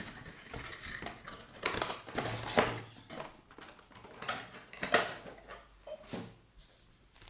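Handling of cardboard trading-card boxes and packs on a table: irregular light clatter with several sharp knocks, the loudest about two and a half and five seconds in.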